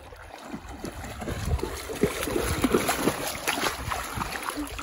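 Shallow river water splashing and sloshing as a Doberman wades through it, growing louder about a second and a half in as the dog comes close, over a low rumble.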